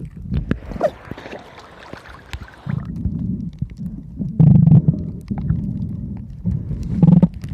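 Muffled low rumbling and thumping picked up by a camera underwater, with a hiss like rising bubbles from about one to nearly three seconds in; the loudest thumps come about halfway through and near the end.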